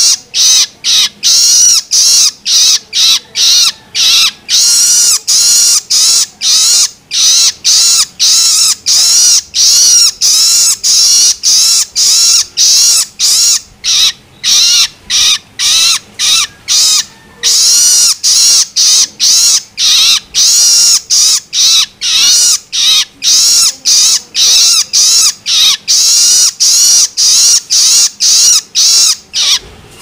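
Juvenile long-tailed shrike (cendet) giving its harsh, arching 'loloan' begging calls, the gaping hunger call of a young bird. The calls repeat nonstop about three times a second, with one short break a little past the middle.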